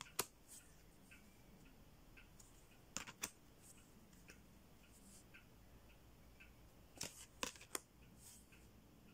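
Stiff tarot cards clicking and snapping as they are flipped through by hand, in three short bursts, over a wall clock ticking faintly and steadily.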